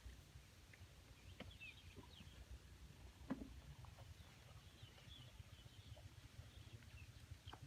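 Near silence: a low rumble of wind on the microphone, with faint scattered bird chirps and a single sharp click about three seconds in.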